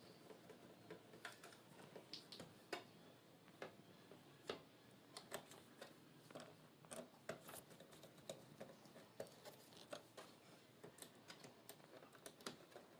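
Near silence, broken by faint, irregular small clicks and light taps, a few each second.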